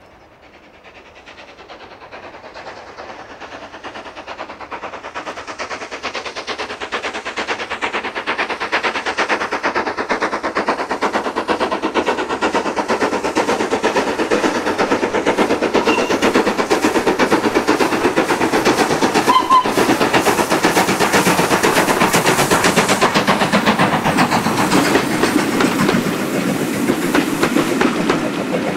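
LNER K1 class 2-6-0 steam locomotive no. 62005, a two-cylinder engine, working a train with a rapid, even beat of exhaust chuffs. The chuffs grow steadily louder for the first two-thirds as it approaches, then stay loud as it passes close by with its coaches.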